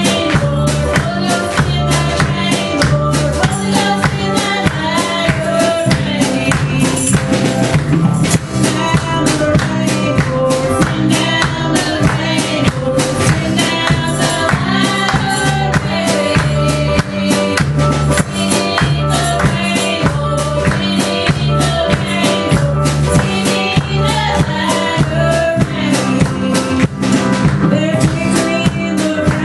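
Live church band playing a gospel song: a drum kit keeping a steady beat under keyboard and bass, with women's voices singing the melody.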